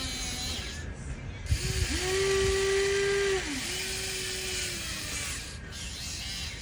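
Huina RC excavator's electric motors whining in short steady runs, the loudest about two to three and a half seconds in and a lower one after it. Each run swoops in pitch as it starts and stops, with a few clicks just before the loudest run.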